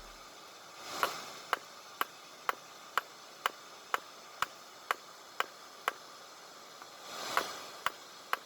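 Hammer blows drawing out a mild-steel rebar knife blade, short sharp strikes in an even rhythm of about two a second, pausing for about two seconds before resuming. Two faint rushing swells, about a second in and near the end.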